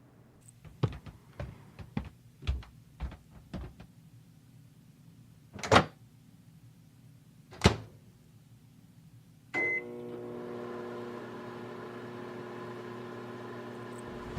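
A series of small clicks and two louder thumps. Then a microwave oven beeps once and starts running with a steady hum, heating the frozen lasagna.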